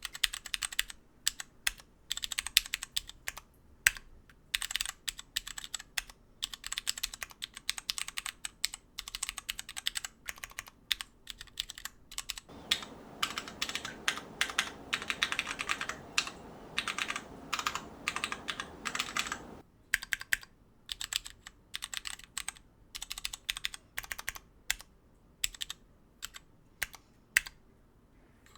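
Typing on a tray-mounted numpad with dry Cherry MX2A Purple switches on an aluminum plate: a fast, irregular run of key clacks. From about twelve seconds in to nearly twenty seconds, the typing is picked up by the camera's built-in microphone, with a steady hiss underneath.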